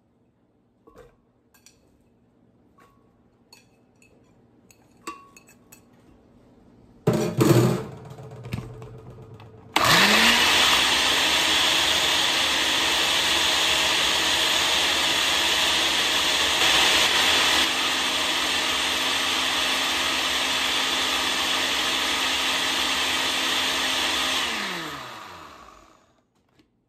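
Countertop blender chopping celery and lime with no water added. A brief loud noise comes about seven seconds in; the motor starts with a rising whine about ten seconds in and runs steadily for about fifteen seconds, then winds down with a falling pitch.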